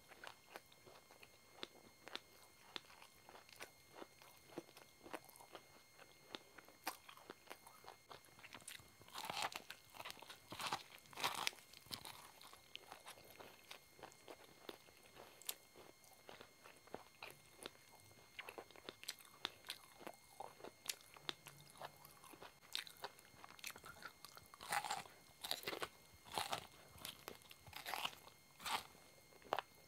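Corn kernels crunched as they are bitten off the cob and chewed, close to the microphone. The crunches come as many short clicks, with clusters of louder bites about nine to twelve seconds in and again in the last five seconds.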